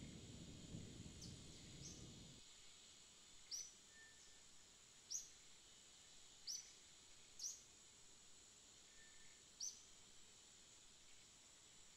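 Faint, short bird chirps, about five spread over several seconds, over a steady high hiss. A low rumble, the tail of thunder, dies away in the first two seconds.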